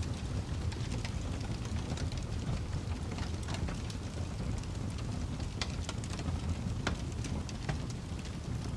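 Wood fire burning, with irregular sharp crackles and pops over a low steady rumble.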